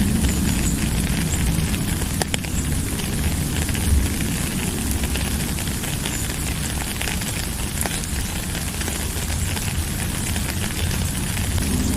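Steady rain with a dense crackling patter over a low rumble, and a few sharper ticks from single drops.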